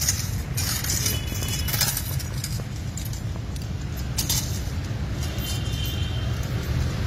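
Steady low rumble with light metallic clinks and jingles, a few short rings, every second or two.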